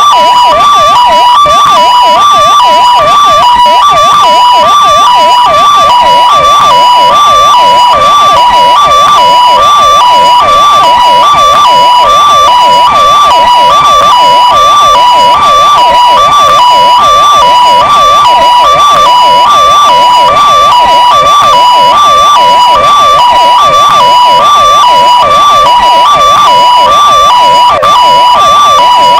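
Two electronic vehicle sirens, a Vittal and a Kingvox SPMX, sounding at once: one steadily alternates between two high tones in a hi-lo pattern while the other does a rapid up-and-down yelp underneath. Very loud.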